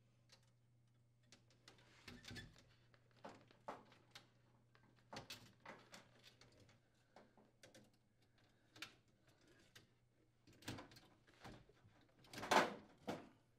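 Faint, scattered metallic clicks and short scrapes as pliers fit wire retaining clips over a defrost heater element onto an aluminium-finned evaporator, with the loudest scrape near the end.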